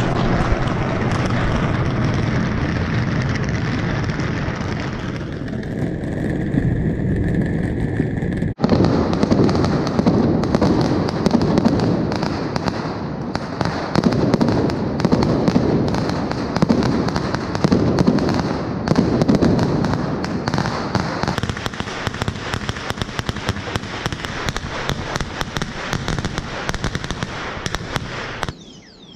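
Fireworks and firecrackers going off nonstop all around, a dense crackle of rapid bangs over a low rumble. The noise drops out for an instant about eight and a half seconds in and cuts off shortly before the end.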